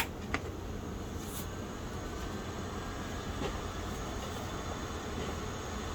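Two sharp clicks at the start, a loud one and then a softer one, from keys being pressed on the Tandy 1000 EX keyboard, followed by the computer running with a steady low hum and hiss.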